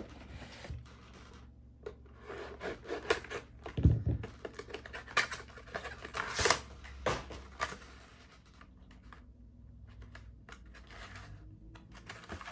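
Yu-Gi-Oh! booster pack wrappers and cards being handled: scraping, rustling and clicking, with a knock about four seconds in, then quieter handling after about eight seconds.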